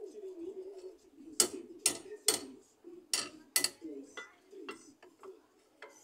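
Sharp metal clanks of a steel crowbar levered against a car's front suspension at the stabilizer-bar link, checking for play behind a heavy knocking noise. There are five loud clanks in two bursts, three then two, about half a second apart, with lighter taps between them.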